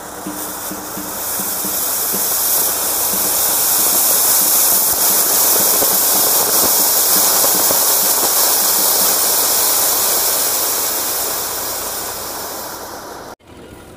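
Ground fountain firework (anar) spraying sparks with a loud, steady hiss that builds over the first two seconds and slowly tapers, then breaks off suddenly near the end.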